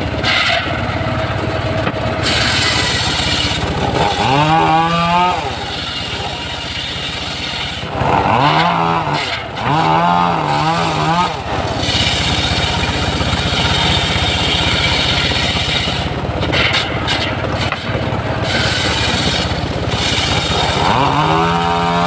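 Homemade engine-driven circular sawmill running while its blade rips a coconut-palm log lengthwise. A steady machine noise throughout, with a pitched note that swoops up and down a few times.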